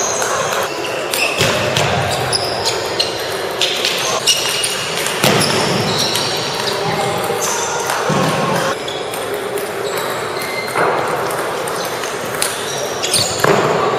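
Table tennis balls clicking off paddles and tables in quick, irregular strikes during rallies, echoing in a large gym over the steady chatter of the crowd.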